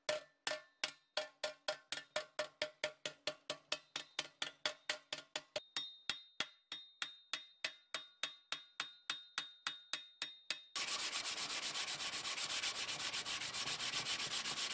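Hammer striking a steel coal-shovel blade on an anvil, about four ringing blows a second; the ring jumps higher in pitch about halfway through the hammering. Near eleven seconds in the hammering stops and sandpaper is rubbed by hand over the steel blade, a steady scraping hiss.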